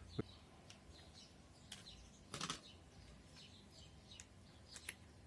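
Quiet handling sounds: a few short, sharp clicks and taps of small parts being moved about on a workbench, with faint bird chirps in the background.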